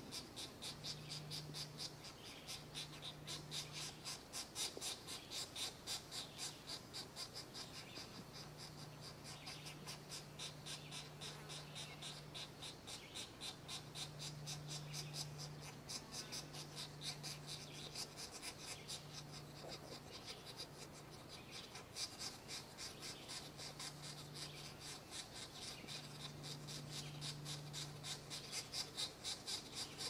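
Pileated woodpecker nestlings begging at the nest hole during a feeding: a fast, steady series of high, raspy calls, about three a second. A low hum comes and goes underneath.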